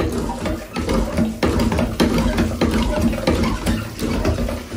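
Cast-iron hand pitcher pump being worked by its handle, clanking with each stroke, with water splashing from the spout into a tub.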